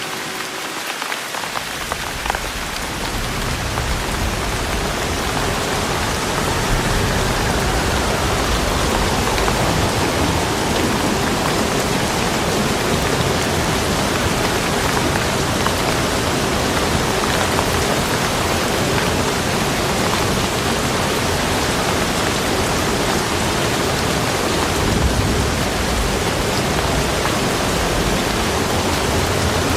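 Steady heavy rain falling, with a deep low rumble underneath; it grows a little louder over the first several seconds, then holds steady.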